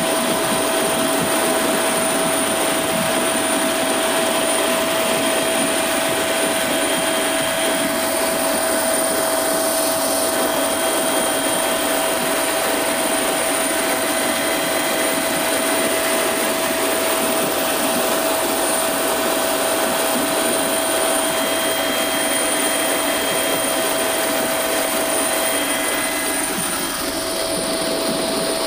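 Helicopter cabin noise in cruise flight: a steady, loud rushing noise from the rotors and turbine, with several high steady whining tones over it.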